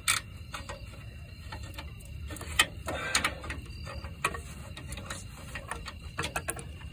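Ratchet wrench clicking in short, irregular runs as the front differential mount nut on a 3rd gen Toyota 4Runner is worked loose, with a denser run of clicks about three seconds in.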